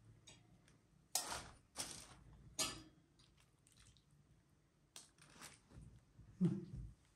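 Metal serving tongs and spoon clinking against a ceramic plate while dishing up food: three sharp clinks in the first three seconds, then a few lighter ones and a duller knock near the end.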